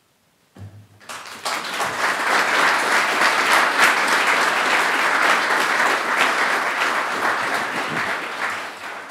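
Audience applauding. It starts about half a second in, quickly swells to full strength, and dies away near the end.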